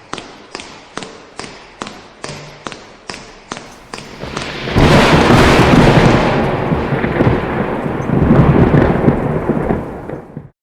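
Outro sound effects: a steady ticking, about two to three ticks a second, then nearly five seconds in a sudden loud rush of deep rumbling noise that lasts about six seconds and cuts off abruptly.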